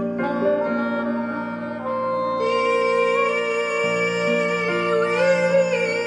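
Live acoustic music: a woodwind instrument playing long held notes over sustained grand piano chords, with a new bright note entering about two and a half seconds in.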